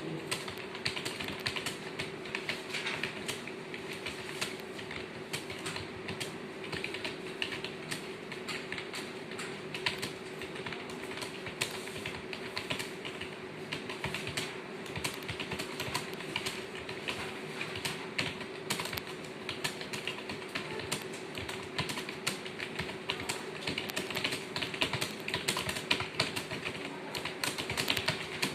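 Rapid, continuous typing on computer keyboards, many key clicks a second without pause, over a steady low hum.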